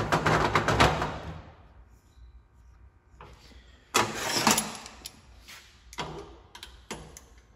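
Cast-iron bench vise being cranked, its handle and screw rattling as a run of rapid clicks that stops about a second and a half in. Then comes a series of sharp metal clanks and clinks, the loudest about four seconds in, as pliers are worked on a small brass carburetor inlet seat clamped in the jaws.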